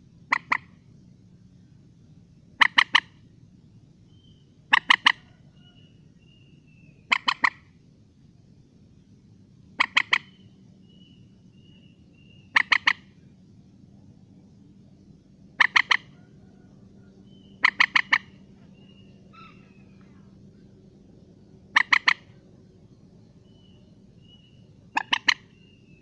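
Common moorhen calling: short, sharp notes in quick clusters of two to four, repeated every two to three seconds, about ten times. Faint thin whistles from another bird sound between the calls.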